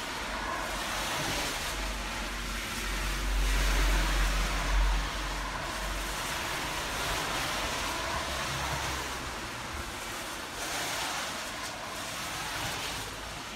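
Car tyres hissing on a wet road as traffic passes: a steady wash of spray noise that swells to a louder pass with a low rumble about four to five seconds in, and swells again near the end.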